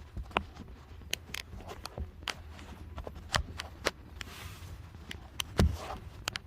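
Irregular sharp clicks and light metal knocks of tools and parts being handled, with one louder knock about five and a half seconds in, over a low hum.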